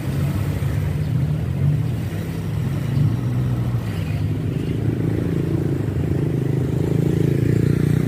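Motorcycle engine running at riding speed with road noise, its low hum growing fuller from about halfway through.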